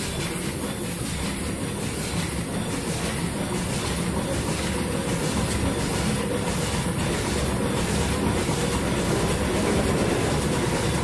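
Old Mirrlees five-cylinder air-blast-injection diesel engine running steadily.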